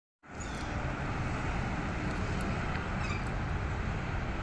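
Steady outdoor background noise: a heavy, fluttering low rumble under an even hiss.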